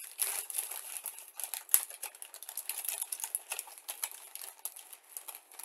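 Clear plastic bag crinkling and rustling as it is handled with plastic model-kit sprues inside, with many small irregular clicks of the plastic parts and one sharper click a little under two seconds in.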